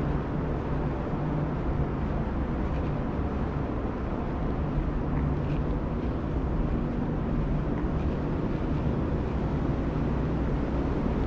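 Steady low hum and rumble of an underground metro station's ambience, with a few faint ticks.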